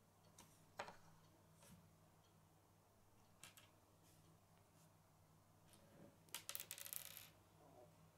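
Faint clicks of small plastic Lego pieces being handled and pressed together on a wooden table: a few single clicks, then a quick run of rattling clicks about six seconds in.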